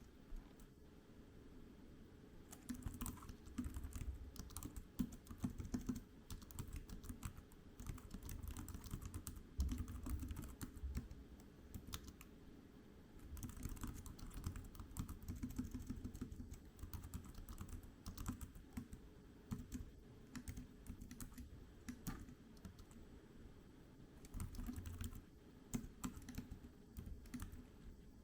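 Typing on a GreenLaw keyboard case for the iPad mini 6: quick runs of key clicks, broken by a few short pauses.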